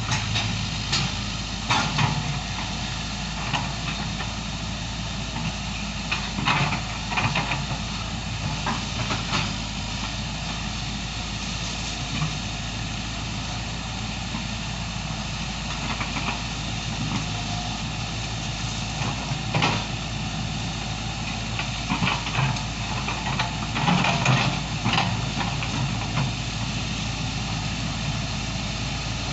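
Excavator's diesel engine running steadily, with sharp knocks and clanks every few seconds as it works.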